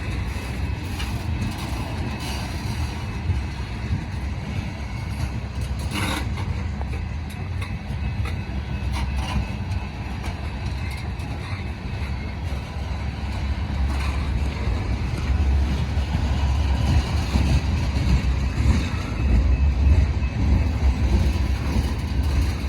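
Diesel-hauled freight train running with a steady low rumble that grows louder over the last several seconds.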